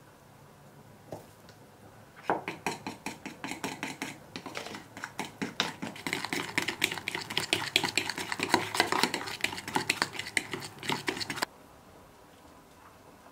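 Spoon beating egg and flour into a dumpling dough in a plastic bowl: rapid clicking and scraping strokes against the bowl. They start about two seconds in, grow busier and louder, and stop suddenly near the end.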